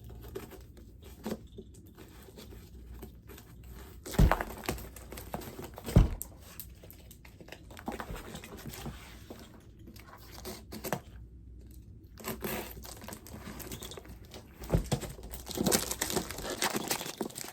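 A shipping package being cut open with small scissors and torn apart, its wrapping crinkling and rustling in irregular handling noises. Two sharp knocks stand out about four and six seconds in, and the rustling gets busier near the end.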